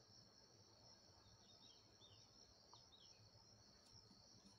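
Near silence: room tone with a faint, steady high-pitched trill in the background.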